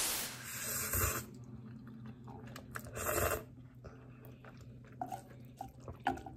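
A person slurping chewy instant ramen noodles off chopsticks and chewing them. There are short slurps at the start, about a second in and about three seconds in, then quieter chewing.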